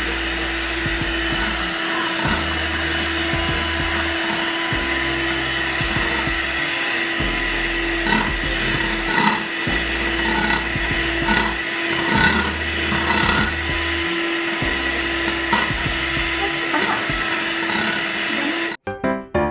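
Electric hand mixer running at a steady whine, its beaters whipping cream in a plastic bowl. The motor cuts off abruptly near the end and piano music begins.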